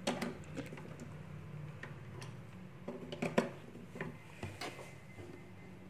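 A series of light, irregular clicks and ticks while the Wi-Fi camera's power adapter is plugged in and the camera powers up, with a small cluster of clicks about three seconds in. A faint steady high tone comes in about four seconds in.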